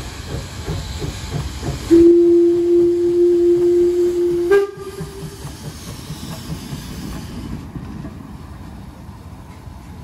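Steam whistle of the Danish steam locomotive DSB Litra Q 350 blowing one long steady blast of about two and a half seconds, stepping up slightly in pitch just before it stops. Around it, the locomotive's steam hiss and soft regular exhaust beats as it moves slowly.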